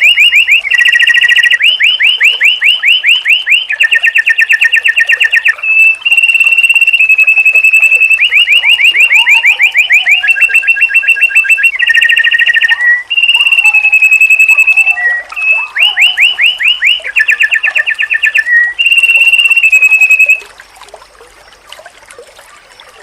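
White-eye (pleci) song played loud: long runs of very rapid repeated notes in fast trills, broken by short steady whistled notes. The song stops suddenly about 20 seconds in.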